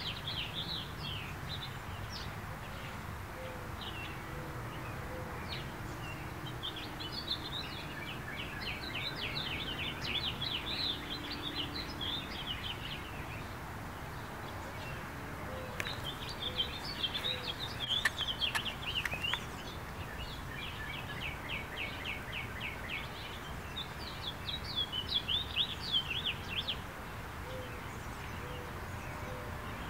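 Birds chirping in repeated bouts of quick, high chirp series over steady background noise. The chirping is loudest a little past halfway and again near the end.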